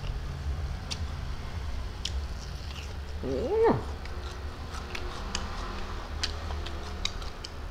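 A single short meow-like call about three seconds in, rising and then falling steeply in pitch. Around it are scattered light clicks of fingers and food on a plate, over a steady low hum.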